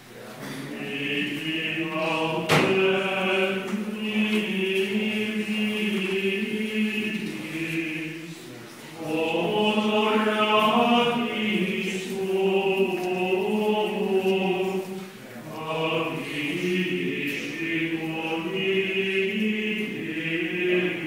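Choir singing Latin plainchant in long phrases, pausing briefly about a third of the way in and again about two-thirds through. A single sharp click comes about two and a half seconds in.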